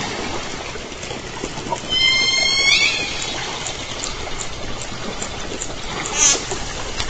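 Southern resident killer whales heard underwater through a hydrophone. About two seconds in comes one pulsed call, a stacked tone that sweeps up at its end, followed by scattered echolocation clicks. About six seconds in there is a brief, loud burst of rapid clicks, all over a steady water hiss.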